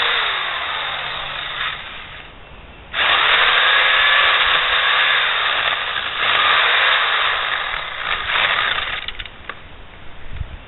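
Electric pole saw's motor running in two bursts as its chain cuts into overhead branches. The first burst winds down before two seconds in; the second starts about three seconds in, runs for about six seconds, then stops, followed by a few light clicks and knocks.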